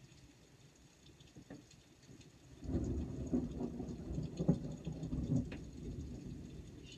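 Rain dripping, then a little over two and a half seconds in a sudden low rumble of thunder breaks in. It crackles with a few sharp peaks and slowly fades.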